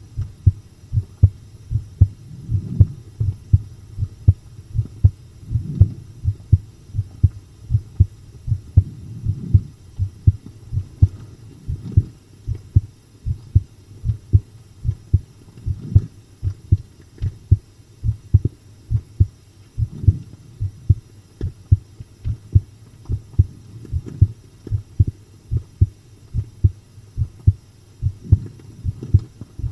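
A human heartbeat recorded close up: a steady run of low, muffled double thumps (lub-dub), with a soft swell of low noise every three to four seconds.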